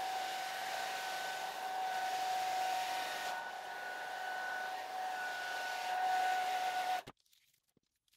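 Hair dryer blowing hot air over masking tape to soften its glue: a steady rush of air with a steady whine. It is switched off suddenly about seven seconds in.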